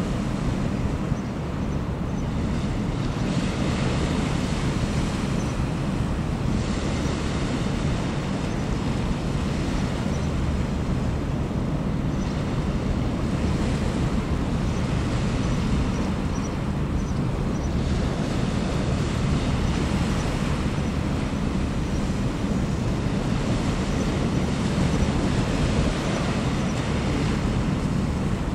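Wind buffeting the microphone over the steady low drone of a general cargo ship's engine, with the wind noise swelling and easing every few seconds.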